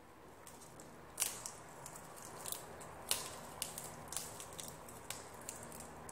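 Crisp lettuce leaves crackling and snapping as they are torn and folded by hand: a run of sharp, irregular crackles, the loudest about a second in and again about three seconds in.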